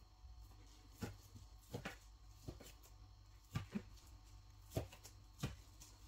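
Faint, scattered soft taps and knocks, about eight in all, from kitchen handling as oatmeal cookie dough is divided into portions.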